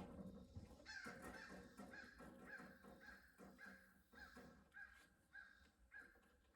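Faint bird calls, a run of short, evenly spaced calls about two a second that grow fainter.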